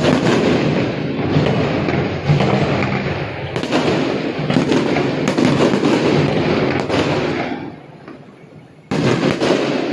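Aerial fireworks shells bursting in a dense barrage, many bangs and crackles running together. It dies down a little before the end, then a sharp new burst sets it off again.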